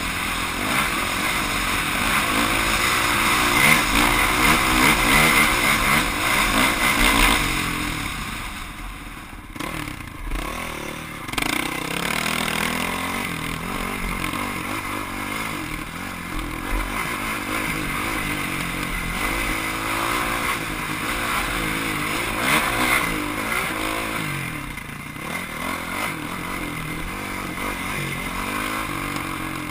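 Off-road motorcycle engine revving up and down as it is ridden along a race course, easing off for a few seconds near the middle before picking up again.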